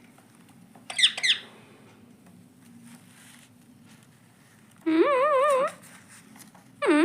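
Indian ringneck parrot calling: a short, harsh, falling squawk about a second in, then near the end a pitched warble that rises and then wavers quickly up and down for under a second.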